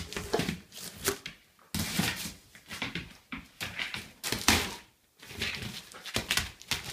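A large dog's claws and paws clattering and scuffling on a tiled floor in irregular bursts as it prances and dances around.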